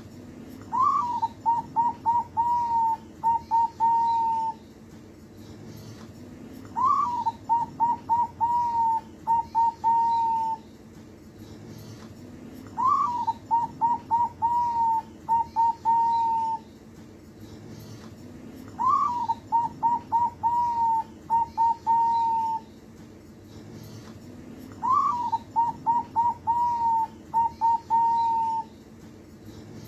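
Zebra dove (perkutut) singing its cooing song five times, about every six seconds. Each phrase opens with a rising note, runs into a quick string of short coos and ends on a few longer held ones.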